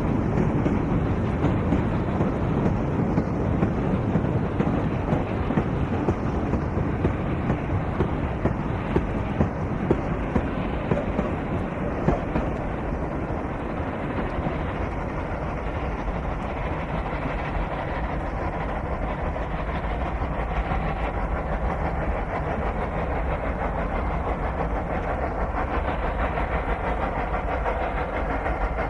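Loaded narrow-gauge ore train hauled by a South Australian Railways T class steam locomotive and a 400 class Garratt, with a dense rumble and the clatter of wagons on the rails. Sharp knocks stand out in the first half, then it settles into a steadier rumble.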